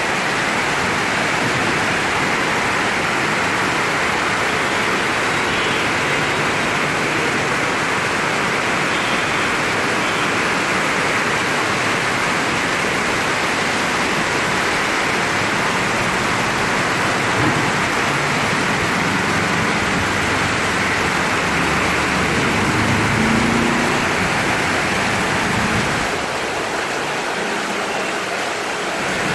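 Heavy rain pouring down in a steady downpour, a little quieter near the end.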